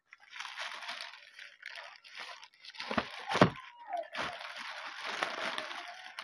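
Plastic courier mailer bag crinkling and rustling as hands grip and work it open, with two louder knocks about three seconds in.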